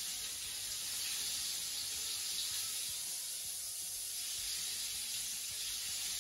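Coconut-floured crayfish pieces deep-frying in hot oil: a steady sizzle.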